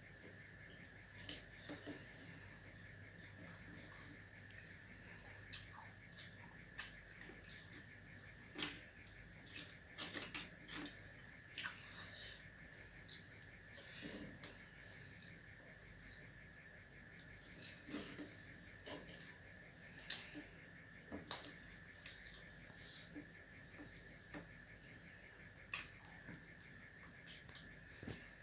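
Crickets chirping steadily in a fast, even pulsing trill, with scattered faint clicks.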